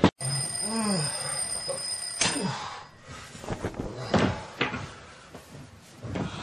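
An alarm clock ringing with a steady high electronic tone for about two seconds, cutting off suddenly. After it come rustling and soft knocks of bedding and a plastic toy slide as someone slides off the bed.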